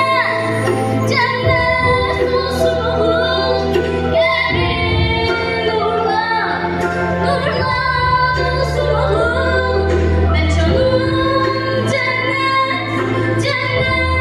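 Girls singing a song in unison over a backing track with long held bass notes.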